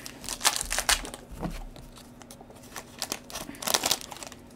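Foil wrapper of a trading-card pack crinkling and tearing as it is opened by hand, in short bursts during the first second and again about three and a half seconds in.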